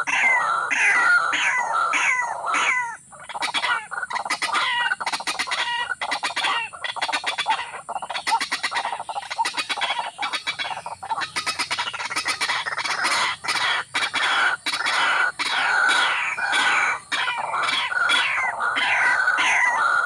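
Rail calling loudly and repeatedly: a steady run of falling notes, about three a second, broken in the middle by stretches of fast clicking notes.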